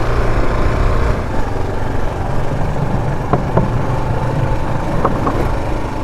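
Single-cylinder dual-sport motorcycle engine running steadily under way, a low rumble with a few short clicks in the second half.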